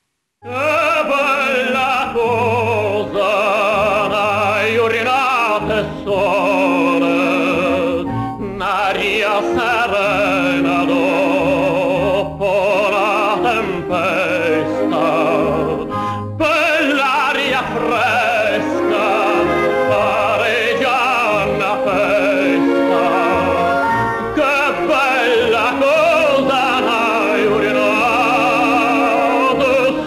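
Male operatic tenor singing long phrases with a wide vibrato over instrumental accompaniment, pausing briefly between phrases about eight and sixteen seconds in.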